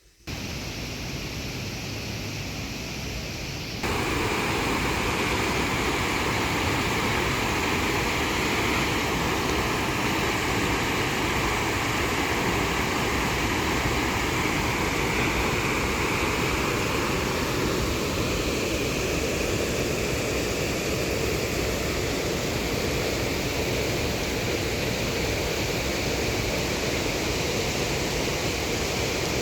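Fast-flowing floodwater rushing, a steady loud wash of noise that steps up louder about four seconds in.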